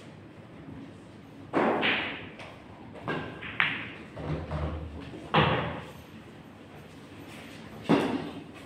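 Pool balls clacking during a shot: the cue strikes the cue ball and balls knock together in several sharp clacks about two seconds apart. A ball drops into a pocket and rolls away inside the table with a low rumble.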